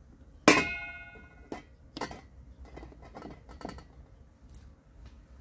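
A metal cake tin set down inside a large metal pot on an upturned ceramic bowl: one sharp clank about half a second in that rings briefly, then several lighter clinks as the tin is settled in place.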